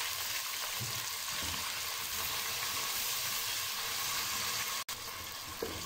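Onion, ginger-garlic paste and ground spices sizzling in hot ghee in a pot while being stirred with a slotted spoon: a steady frying hiss. It cuts out for an instant just under five seconds in.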